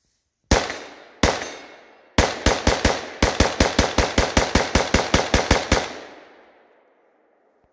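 Custom-built .223 AR-15 rifle being test-fired: two single shots, then a rapid string of about twenty shots at roughly six a second, with a brief pause partway through. The last report echoes and dies away.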